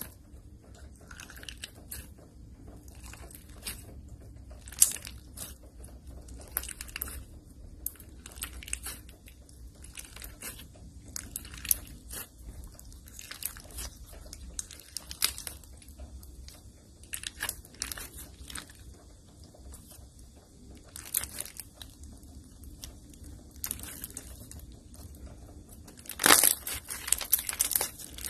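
Hands squishing and stretching slime, giving irregular sticky crackles and pops, with a louder burst of crackling near the end.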